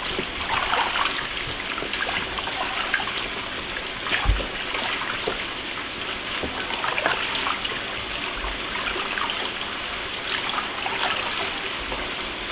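Water sloshing and trickling in a plastic basin as hands rub and lift handfuls of small salted dried fish, rinsing the salt out, with water dripping back off the fish. One dull thump about four seconds in.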